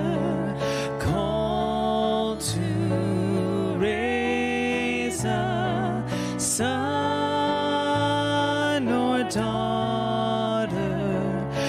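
A slow worship song: a singer's voice, with vibrato on the held notes, over sustained keyboard chords.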